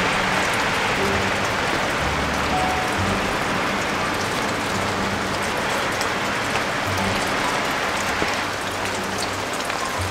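Steady rain, an even dense hiss, with the low held bass notes of background music underneath.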